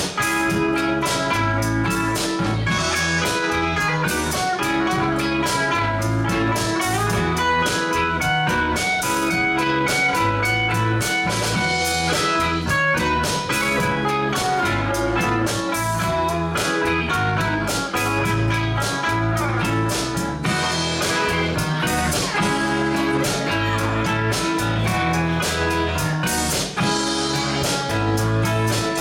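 Live band playing: electric guitars, bass guitar and keyboard over a steady drum-kit beat.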